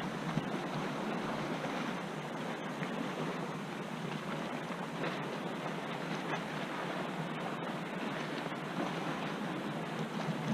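Choppy river water splashing against a kayak's hull, a steady wash of noise with a few faint slaps now and then.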